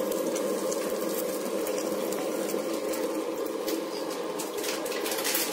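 Hot melted sugar caramel bubbling and sizzling steadily in a pan as warmed cream is poured into it.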